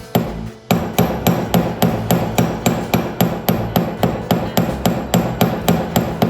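Hammer striking metal rivet pins to flatten them, in a steady run of sharp blows at about three to four a second, with a short pause just after the first blow.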